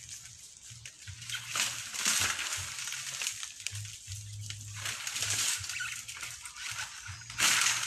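Dry palm fronds and leaves rustling and crunching in irregular swells, loudest near the end, with a low hum coming and going underneath.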